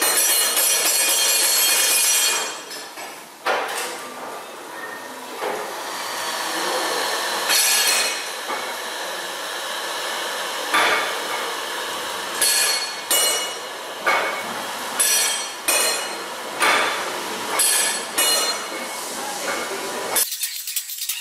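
Steam hissing from the 1895 Worth-McKenzie triple-expansion steam engine on a second attempt to start it, with metallic clinks and knocks. From about eleven seconds in these settle into a beat of about one a second.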